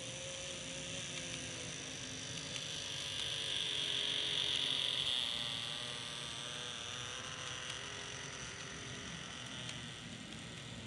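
KATO N-gauge 683 series Thunderbird model train running along the track, its small motor and wheels giving a steady mechanical whine and rattle. It grows loudest about four to five seconds in as the train draws past, then eases off.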